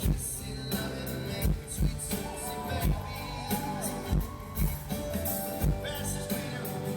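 Live pop music: a band playing with a steady drum beat and sung vocals.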